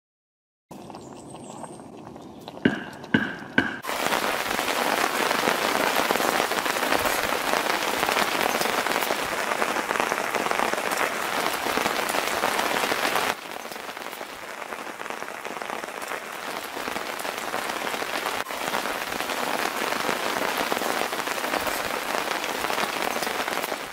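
Heavy rain falling on a forest, a dense steady hiss that starts suddenly about four seconds in and eases somewhat about halfway through. Before it, three short ringing clicks.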